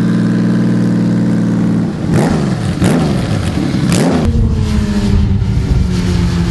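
A flat-six cruiser motorcycle's engine running steadily as it passes. About two seconds in, a second motorcycle's engine rises and falls in pitch three times with sharp cracks, then settles into a steady note as a sport bike leans through the corner.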